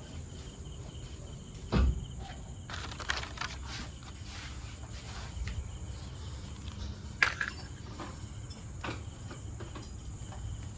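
Workshop handling noise: scattered knocks and clicks from engine valvetrain parts being handled, with a heavier thump about two seconds in and a sharp click about seven seconds in, over a steady high-pitched background chirr.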